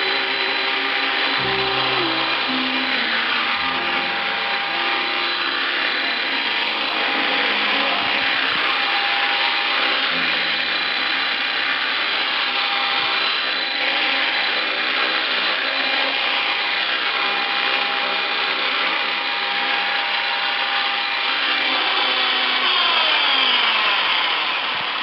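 Align T-Rex 450 SE V2 electric RC helicopter's motor and main rotor running: a steady high whine made of many tones, drifting a little in pitch as it hovers and sets down, then falling in pitch near the end.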